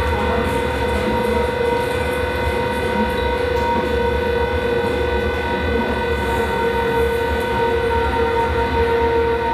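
Live experimental electronic drone music: a steady wall of held tones at fixed pitches over a low rumble, with no beat.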